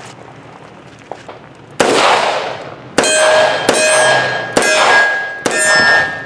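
Five shots from a Taurus 85 Ultra Lite .38 Special revolver, starting a couple of seconds in and coming about a second apart. The first draws no ring; each of the last four is followed by a steel target ringing with a clear clang.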